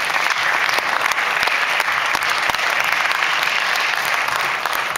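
Auditorium audience applauding steadily.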